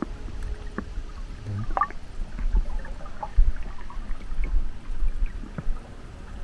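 Running stream water: a steady low rumble with scattered small clicks and bubbling pops.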